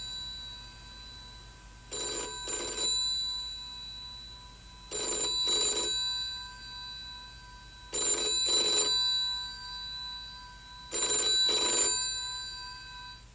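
Old rotary-dial telephone's bell ringing in pairs of short rings, four double rings about three seconds apart.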